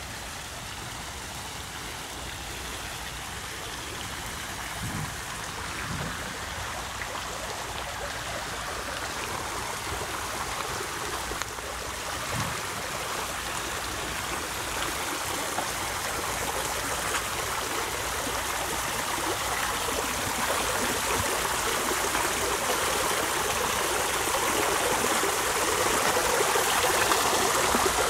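Water from a stone bowl fountain spilling over its rim and splashing into the pool below: a steady rushing splash that grows gradually louder.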